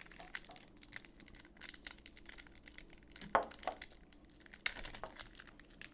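Foil wrapper of a Pokémon trading-card booster pack crinkling and crackling as it is handled and torn open, with a few louder crackles partway through.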